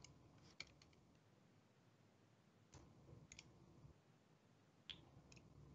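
A few faint, scattered computer keyboard keystrokes, single clicks a second or two apart, over near silence.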